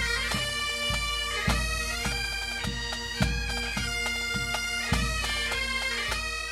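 Highland bagpipes playing a tune over their steady drones, with a low drum beating about every half second or so.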